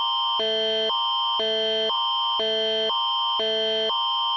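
Canadian Alert Ready attention signal of an emergency alert broadcast: two electronic chords, a higher and a lower one, alternating about every half second, with a high tone held through both. It signals that an emergency alert message follows.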